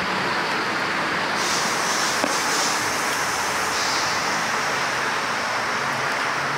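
Steady, even rushing noise with no distinct events, like the hum of a vehicle's cabin or passing traffic, with one faint click about two seconds in.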